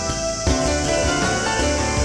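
Instrumental background music, with sustained tones and a low bass line; a new chord comes in about half a second in.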